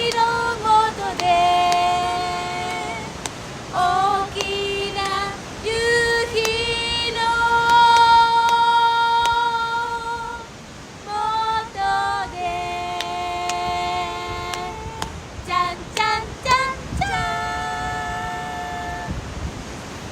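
Women's voices singing a song, holding long notes and at times singing two parts together, with no clear accompaniment.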